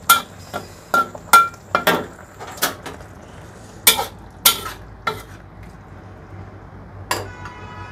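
Metal kitchen utensil clinking against a cooking pot and dishes, about nine sharp clinks in the first five seconds, then one clink with a clearer ring about seven seconds in, as the finished dish is served from the pot into a bowl.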